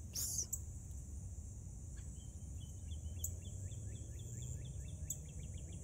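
Outdoor insect chorus, a steady high-pitched drone, with a bird calling from about two seconds in: a series of short down-slurred notes repeated faster and faster. A short rustle sounds near the start.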